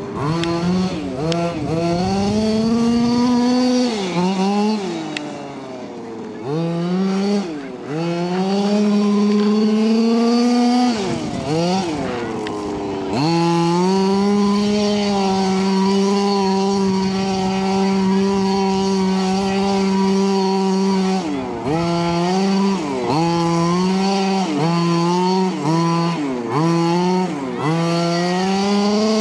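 HPI Baja 5SC RC truck's small two-stroke gasoline engine, with a chainsaw-like buzz. It is revved up and down as the truck drives, held at steady full throttle for several seconds in the middle, and given quick repeated throttle blips near the end.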